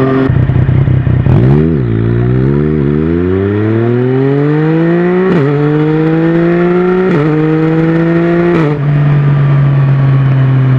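Yamaha Tracer 900's three-cylinder engine through a Mivv Oval titanium exhaust, pulling away and accelerating up through the gears. The note rises and drops sharply at each quick upshift, about five times, then holds a steady cruising note for the last two seconds.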